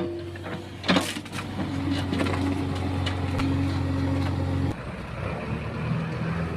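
Excavator engine running steadily under load, with a sharp crack of wood or tree roots breaking about a second in. Near the end the engine note drops and settles at a different pitch.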